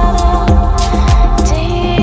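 Downtempo world-music track playing: a deep electronic kick drum that drops in pitch on each beat, about two beats a second, under sustained melodic lines and crisp high percussion.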